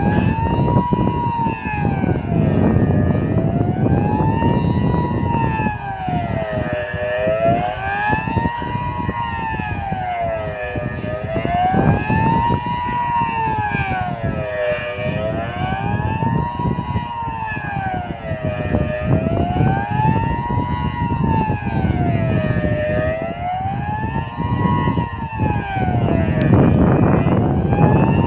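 Delta-8 electronic civil-defence siren sounding a wail that slowly rises and falls, about once every four seconds, with a fainter second wail out of step with it. This is the Swiss general-alarm signal, sounded here as a test.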